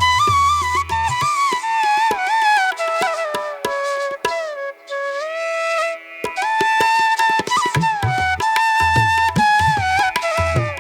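Background music: a flute-like melody over tabla-style drumming, which drops out for a few seconds in the middle while the melody holds a low note.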